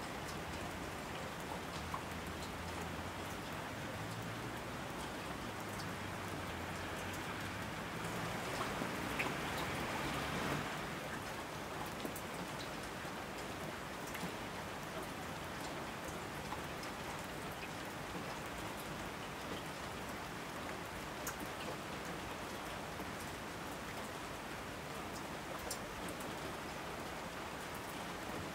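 Steady rain falling, an even hiss dotted with the ticks of single drops, briefly heavier about eight to ten seconds in.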